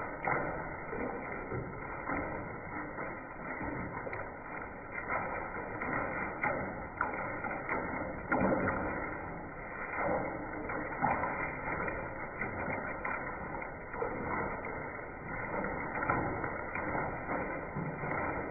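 Hailstorm: a dense, irregular clatter of hailstones striking over a steady rush of falling hail and rain.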